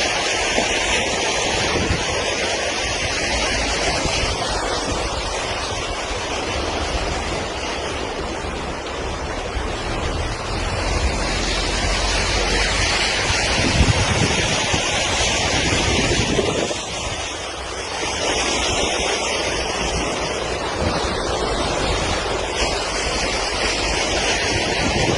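Steady rushing noise of fast-flowing floodwater, mixed with wind buffeting the microphone, swelling and easing over the span.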